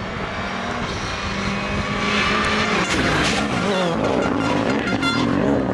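Rally car engine revving hard as the car slides through a corner and passes close, its pitch climbing and dropping with the gear changes. A hiss of tyre and gravel noise comes about two seconds in, and a few sharp crackles near the end.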